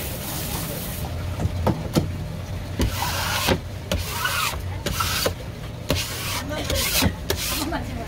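Knife working on a cutting board as a red seabream is cut up: scattered sharp taps and clicks with short rasping scrapes of the blade, over a steady low hum.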